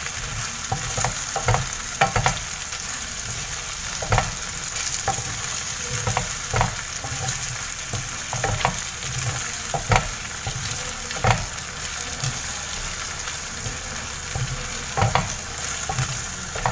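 Tuna sisig sizzling in a frying pan while being stirred, the utensil scraping and knocking against the pan every second or so.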